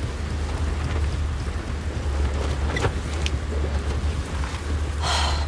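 Wind buffeting the microphone in a steady low rumble, with a couple of faint light clicks about three seconds in.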